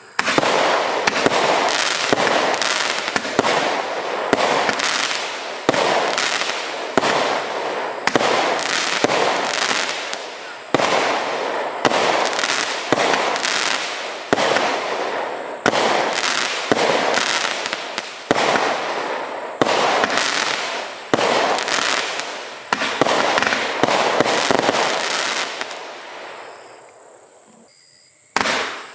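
Fireworks barrage cake firing a rapid series of shots, roughly one a second, each bang trailing off quickly; the volley dies away near the end.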